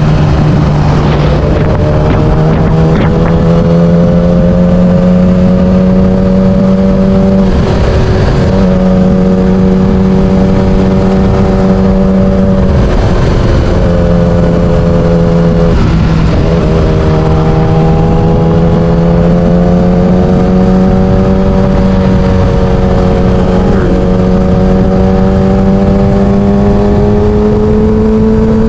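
Yamaha R6 sportbike's 600cc inline-four engine pulling under load, its note climbing slowly in pitch. The note breaks off briefly about eight and thirteen seconds in and dips near sixteen seconds, with steady wind noise on the microphone underneath.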